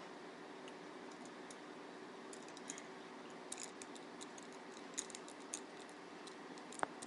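Light, scattered clicks and taps as tripod parts are handled and screwed together, with the sharpest click near the end, over a steady faint hum.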